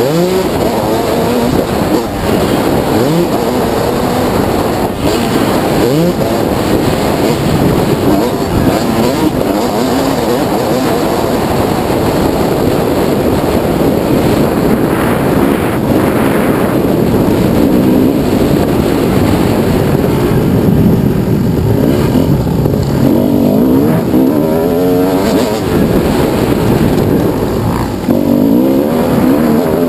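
1998 Kawasaki KX250 single-cylinder two-stroke engine at race pace, revving up and dropping back again and again as the rider works the throttle and gears.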